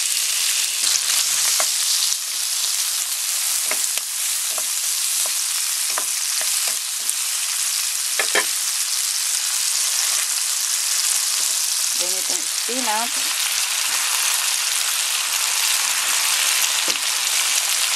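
Sweet corn kernels sizzling in melted butter in a frying pan: a steady frying hiss with scattered sharp clicks.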